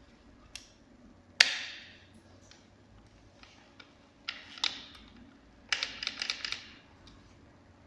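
A series of sharp clicks and taps from hard parts being handled. One loud click comes about a second and a half in, two more follow midway, and a quick rattle of several clicks comes near the end.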